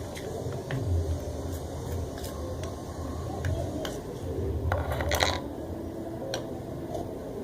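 Homemade slime mixture of lotion, glitter and cornstarch being stirred in a bowl: scattered clicks and scrapes of the utensil against the bowl, with one longer, louder scrape about five seconds in.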